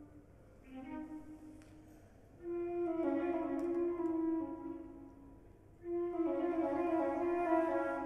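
Solo concert flute playing long, low held notes. It starts softly, grows loud about two and a half seconds in, fades, then swells loud again about six seconds in.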